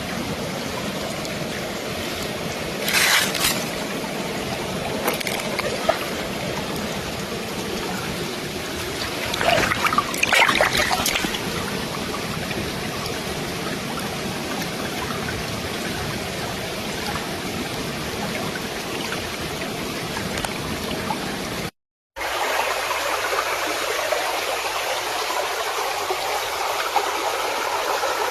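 River water running steadily over rocks, with a couple of brief louder bursts about three seconds and ten seconds in. About 22 seconds in the sound cuts out for a moment and returns with less low rumble.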